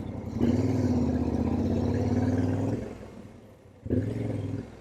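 Yamaha Ténéré 700's parallel-twin engine pulling at steady low revs for about two and a half seconds, then easing off, with a short second burst of throttle near the end.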